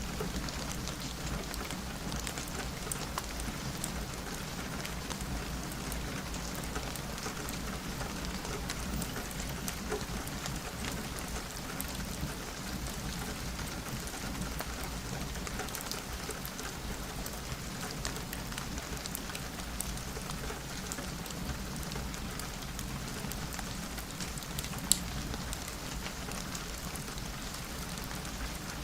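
Steady rain falling on a window, an even hiss scattered with small ticks and pops from a crackling fireplace, with one sharp louder pop near the end.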